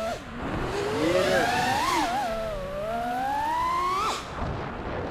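FPV quadcopter's brushless motors whining, the pitch swinging with the throttle: a dip at the start, a wavering climb, a steady rise for about a second and a half, then a sharp drop near the end.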